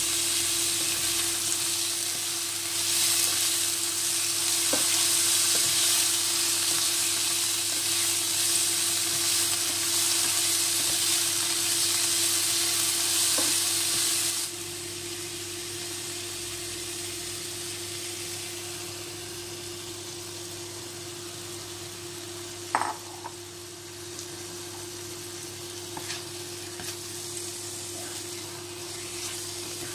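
Sliced ampalaya (bitter gourd) and garlic sizzling in oil in a nonstick frying pan as a spatula stirs them; the sizzle drops to a quieter level about halfway through. A single sharp knock sounds a few seconds after the drop, and near the end beaten egg is frying with the vegetables.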